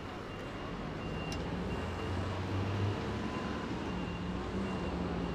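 Road traffic with a heavy vehicle's engine running and a reversing beeper sounding a high beep over and over.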